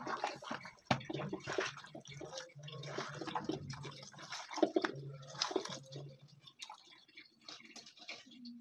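A hand squishing and kneading raw fish pieces in a wet spice marinade in a steel bowl: irregular soft, wet squelches and slaps that thin out near the end.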